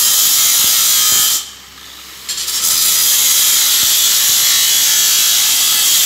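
Handheld electric angle grinder with a cut-off disc cutting through a steel pipe: a loud, high grinding hiss. It drops away for nearly a second about a second and a half in, then comes back.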